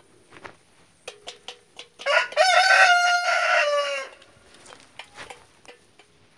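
A rooster crowing once, a single cock-a-doodle-doo of about two seconds starting two seconds in, held on one pitch and dropping at the end.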